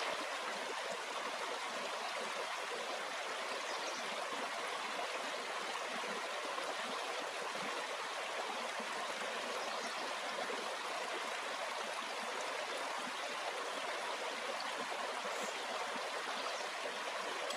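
Small rocky creek flowing over stones, a steady rush of running water.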